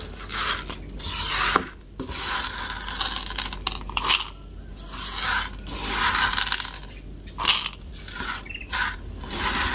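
Green coffee beans rattling and scraping against a plastic bowl as fingers stir and sift through them, in uneven bursts of a second or so.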